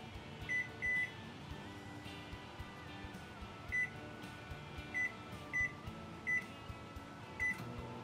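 Microwave oven keypad beeping as the cooking time is entered: seven short, high beeps at uneven intervals, two close together about half a second in and the rest spread through the latter part.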